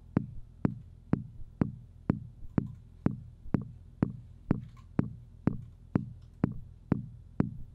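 Intellijel Plonk percussion module sounding a steady pulse of about two hits a second, each a sharp low-pitched strike with a short ringing tail. Its decay length is being set by a Teletype CV output.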